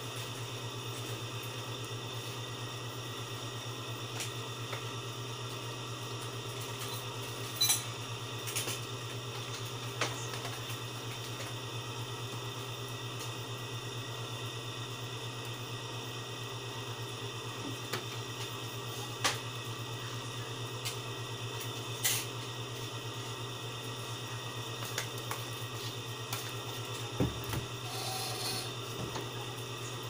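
Small metal clicks and scrapes, a few spread-out sharp ticks, from tweezers and a ballpen tube probing a desktop PC's audio jack to pull out a broken headphone plug tip, over a steady low hum.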